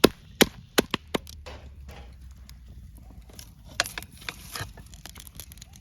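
A rapid run of sharp, hard strikes, about three a second, ending about a second in, followed by scattered softer knocks over a low rumble.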